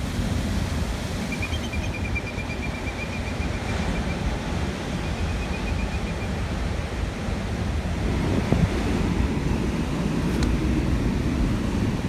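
Steady rush of sea surf and wind, with wind buffeting the microphone.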